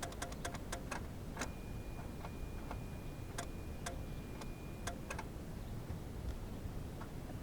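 Geo Metro's starter solenoid chattering, a fast even clicking of about seven clicks a second that stops about a second in: the jump pack is too weak to crank the engine. A steady high beep follows for a few seconds, with a few scattered clicks.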